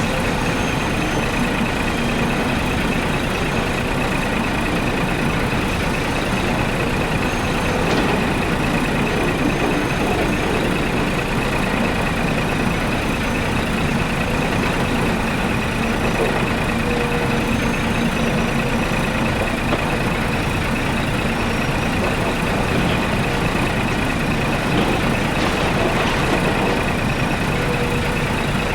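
Truck diesel engine running steadily and loudly, with an even hum and no change in pace.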